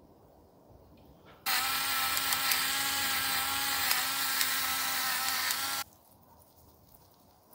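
Electric pepper grinder running for about four seconds, its small motor giving a steady tone over the rasp of grinding. It starts about one and a half seconds in and cuts off abruptly.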